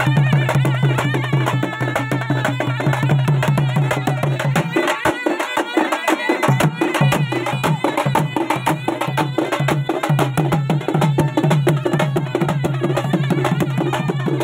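Fast folk drumming: a dappu frame drum and other drums beaten with sticks in a dense, steady rhythm. Above the drums runs a wavering melody line, and beneath them a steady low drone that drops out for about two seconds midway.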